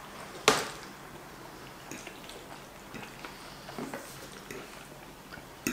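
A person chewing a mouthful of seafood linguine: a sharp click about half a second in, then faint, scattered wet mouth clicks of chewing.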